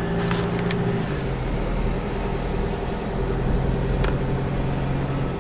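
Car engine running and tyre noise heard from inside the cabin while driving slowly through town, the engine note dropping a little about a second in, with a couple of faint ticks.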